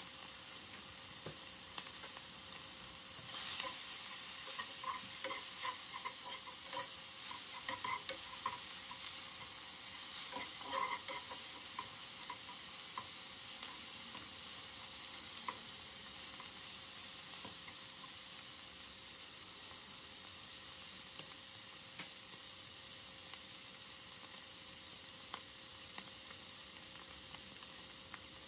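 Diced bacon sizzling steadily as it fries in a nonstick frying pan. For several seconds in the first half, a spatula scrapes and knocks against the pan as it stirs the bacon.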